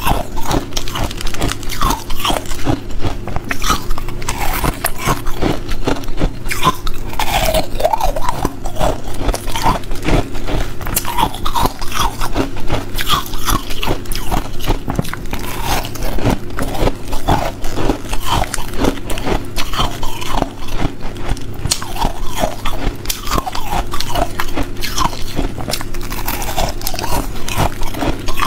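Close-miked biting and chewing of a block of hard frozen ice: a dense, irregular run of sharp crunches and cracks as pieces are bitten off and ground between the teeth.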